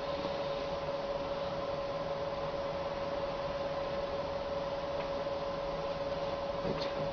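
Steady electrical hum over a faint even hiss, with a faint click near the end.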